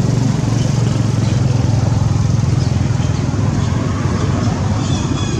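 A steady, low engine drone from a running motor, unchanging throughout, with a few faint high chirps near the end.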